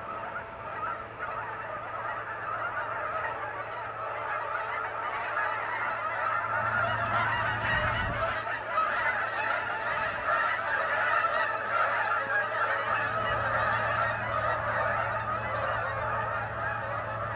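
A large flock of geese honking, many birds calling at once in a dense, continuous din that swells over the first few seconds and stays loud.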